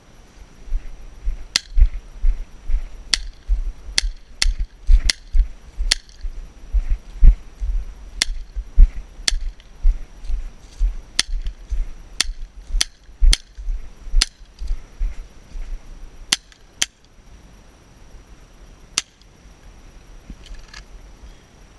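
Airsoft 1911 pistol firing about eighteen single shots at an uneven pace: sharp cracks, some in quick pairs, then one last shot after a pause near the end. A low rumble on the microphone runs under the shots.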